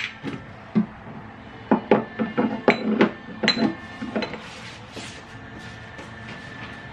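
Plastic toiletry bottles knocking and clinking as they are handled and set down on a shelf: a quick run of sharp knocks between about two and four seconds in.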